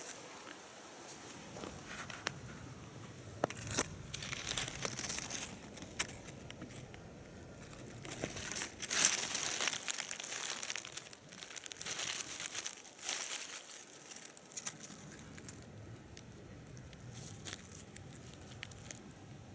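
Dry leaf litter and grass rustling in irregular bursts with small clicks, as a hand parts the forest floor around a mushroom. Loudest about nine seconds in, then quieter.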